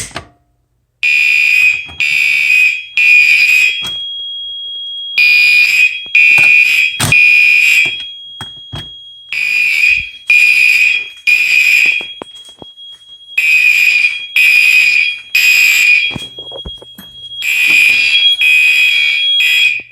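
Gentex Commander 2 and Commander 3 fire alarm horns sounding loudly in the temporal-3 evacuation pattern: three short blasts, a pause, then three more, about five times over. A fainter steady high tone carries on between the groups.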